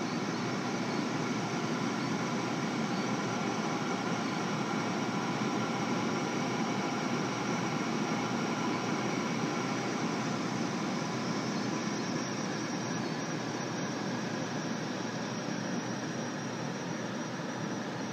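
Pneumatic ICP nebulizer running as it aspirates and sprays its aerosol: a steady rushing hiss of gas flow, with faint steady high whining tones over it.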